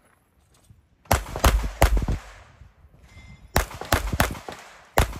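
Pistol shots fired in quick strings during a practical-shooting stage: three shots about a second in, a pause of a second and a half, then about five more in quick succession, each with a short echo.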